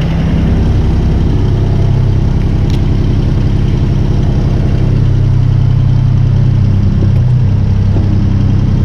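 Paver's engine running steadily at idle, its tone shifting slightly about a second and a half in and again about seven seconds in.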